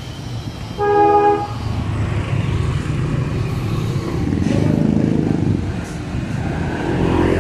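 Street traffic: a vehicle horn honks once, briefly, about a second in, over the steady rumble of engines, with a louder engine passing in the middle.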